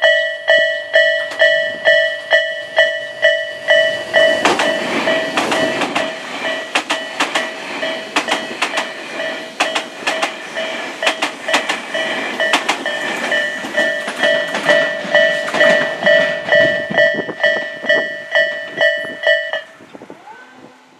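A level-crossing warning bell rings with an even ding-ding at about two to three strikes a second. From about four seconds in, a Tobu 500 series Revaty limited-express train passes close by, its wheels clicking over the rail joints under a rush of running noise. The bell cuts off suddenly near the end.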